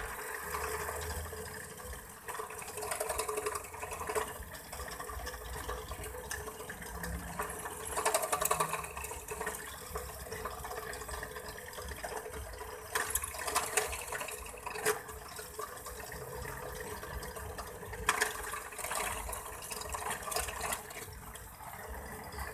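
Bench drill press running with a steady motor hum while the bit drills through the thin aluminium main frame of an overhead fishing reel, with louder bursts of cutting noise now and then as it is fed into the metal.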